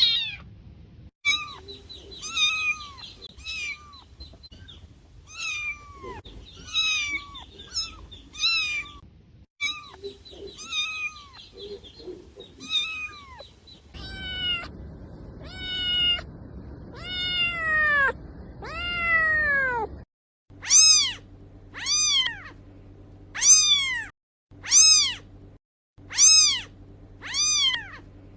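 Domestic cats meowing in a string of separate recordings. Short, quick meows come first, then a few longer drawn-out meows, then loud meows about once a second near the end.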